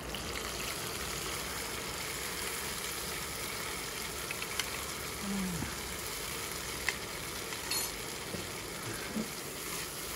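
Chopped cherry tomatoes sizzling steadily in hot oil in a frying pan, with a few light clicks of a metal spoon against the pan as they are stirred.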